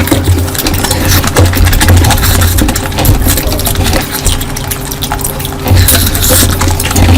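Close-miked wet eating sounds of curry: loud, continuous chewing and slurping full of small sticky mouth clicks.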